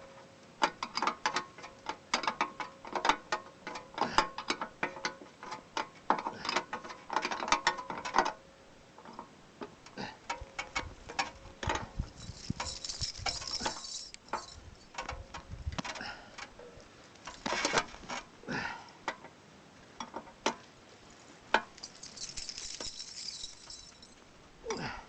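Hand tools working on Buran snowmobile metal parts: rapid ratchet-wrench clicking for about eight seconds, then scattered clanks and knocks with two short scraping hisses.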